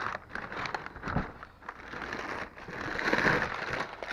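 Packing paper being crumpled and rustled while a package is unwrapped, an irregular crackling that swells and fades.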